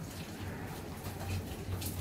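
Rainy-day outdoor ambience: a steady low rumble with a few light ticks of raindrops, one near the start and one near the end.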